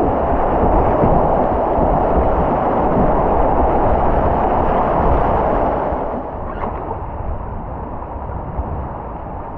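Rushing whitewater of river rapids, a loud, steady rush of noise that drops off about six seconds in.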